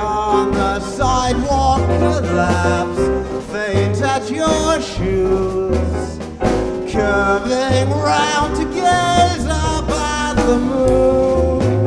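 Music: a man singing into a microphone over a band, with a low bass line underneath.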